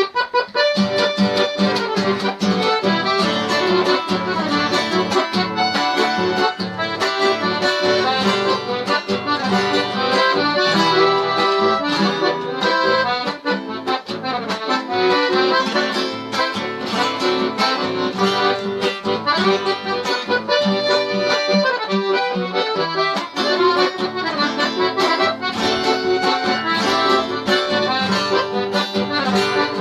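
Accordion playing an instrumental tune: a continuous stream of melody notes over held low bass notes.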